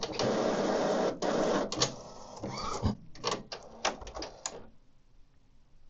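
Epson WorkForce Pro WF-3820 inkjet printer's internal mechanism running as the printer powers off, a steady mechanical noise followed by a quick series of clicks. The sound stops about three-quarters of the way through, when the printer has finished shutting down.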